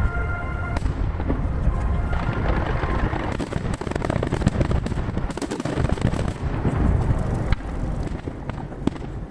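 Aerial fireworks shells bursting in close succession, a dense run of bangs over continuous booming rumble. The recording is played at triple speed, so the bursts crowd tightly together.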